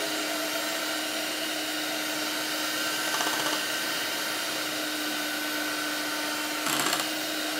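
Electric hand mixer running steadily, its twin beaters whisking a creamy liquid in a plastic bowl, with a steady motor hum and brief louder rattles about three seconds in and again near the end.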